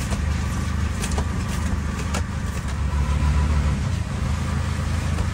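Auto-rickshaw engine running steadily under way, over a constant hiss of rain and wet road.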